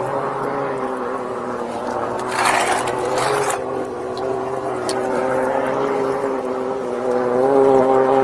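High-pressure drain jetting machine running steadily with a constant, even-pitched drone. A hiss of water spray rises over it for about a second, a couple of seconds in.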